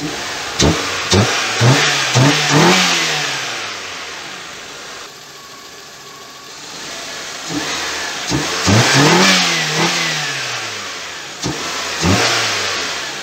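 Toyota Corolla AE111's 4A-GE 20-valve four-cylinder engine idling and being revved by hand: four quick throttle blips in the first couple of seconds, a steadier idle, then a longer rev that climbs and falls back, and two more short blips near the end.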